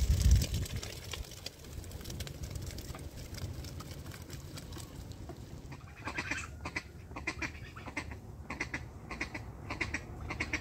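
A duck quacking repeatedly, short calls about two a second starting some six seconds in, over a steady low rumble of wind noise that is loudest right at the start.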